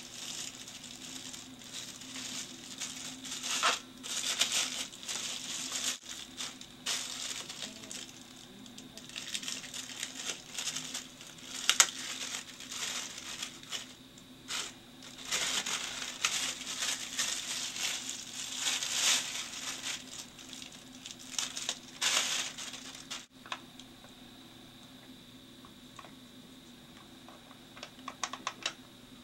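Bubble wrap and a plastic bag crinkling and rustling in irregular bursts as a camera lens is unwrapped by hand. The crinkling stops about three quarters of the way through, leaving a faint steady hum, with a few light clicks near the end.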